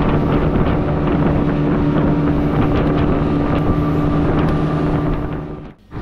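Speedboat engine running steadily at speed, with wind buffeting the microphone and the wake rushing and splashing. The sound drops out briefly near the end.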